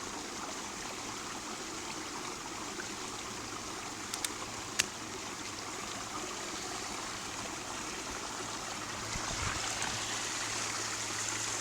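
Small creek swollen by rain, flowing steadily with a trickling, splashing rush, growing a little louder near the end. A few sharp clicks come a little over four seconds in.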